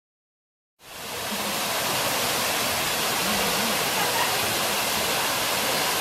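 Waterfall plunging into a pool: a steady rush of falling water that fades in out of silence about a second in.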